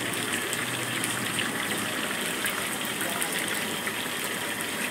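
Chicken pakoda fritters deep-frying in a wide wok of hot oil: a steady, dense sizzle and crackle of bubbling oil.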